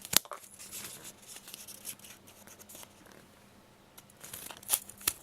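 Small multi-tool scissors of a Leatherman Squirt S4 cutting through a stack of about twelve sheets of paper: a sharp snip right at the start, then paper crackling and tearing as the blades work through, easing off in the middle and picking up again near the end.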